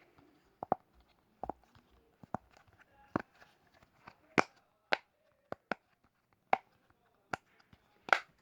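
Simple dimple fidget toy having its silicone bubbles pressed, giving a dozen or so sharp pops at uneven intervals.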